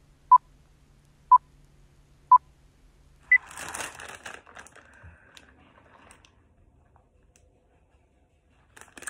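Film-leader countdown beeps: a short steady beep once a second, three times, then a single higher-pitched beep. A couple of seconds of crinkly, rustling noise follows and fades away.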